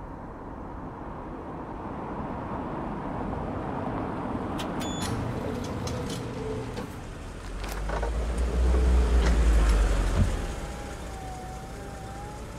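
A car approaching and pulling up close, its engine and tyres building to a low rumble that is loudest for a couple of seconds before cutting off with a click, followed by a faint steady tone.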